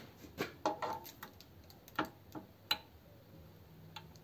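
A handful of sharp metallic clicks and taps, irregularly spaced, as pliers grip and work a small drain tap on a radiator's bottom tank.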